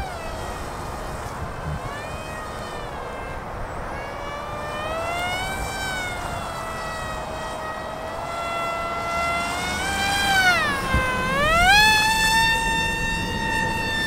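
The electric motor and propeller of an XK A180 F-22 Raptor RC plane whining in flight, the pitch sinking and rising as the throttle and distance change. It dips lowest late on, then climbs back to a steady high whine. Wind rumbles on the microphone underneath.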